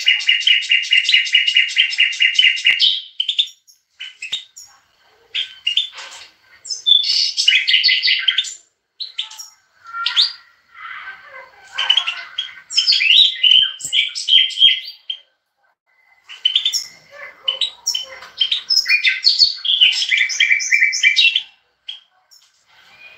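Caged European goldfinch singing: high, twittering song phrases with fast trills, opening with a rapid trill of about three seconds, then several bursts broken by short pauses.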